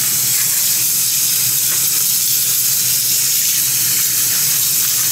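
Water running steadily from a tap, rinsing bleach out of a wig.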